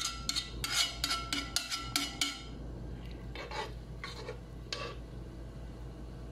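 Wooden spoon stirring rice and water in a pot, knocking against the pot's sides: a quick run of taps that ring briefly, then a few sparser knocks from about three and a half seconds in.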